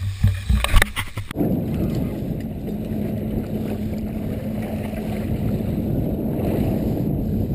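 A few sharp knocks, then about a second and a half in a steady low rumble with a constant hum sets in suddenly: a fishing boat's engine running with water noise.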